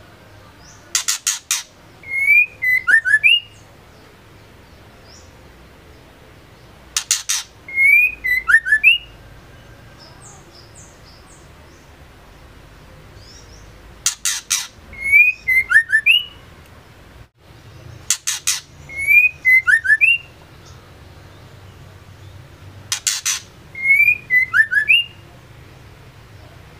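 A female white-rumped shama calling, repeating much the same short phrase five times. Each phrase is a quick run of sharp clicking notes followed by a few rising and falling whistled notes.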